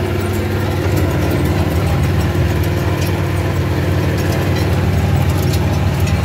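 Yanmar 1300 compact tractor's diesel engine running steadily while it pulls a hay tedder across the field, heard from inside the cab, with light clicks on top.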